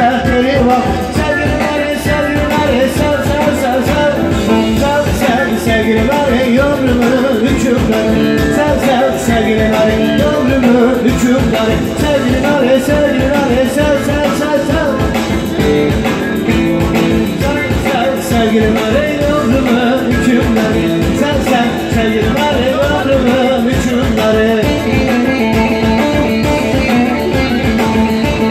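Turkish halay dance music with a singer and plucked string instruments, playing loudly and without a break.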